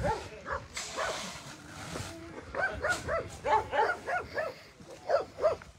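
Dogs barking in quick runs of short barks, most densely in the second half. A short hiss comes about a second in.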